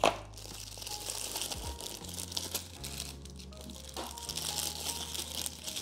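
Packaging crinkling and rustling as an accessory box is unpacked by hand, with a couple of sharp clicks, over background music with a low bass line.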